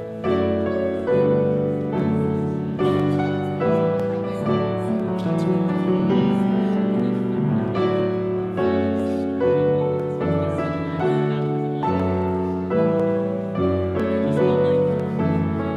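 Slow piano music, with chords and melody notes struck about once a second, each fading after it is played.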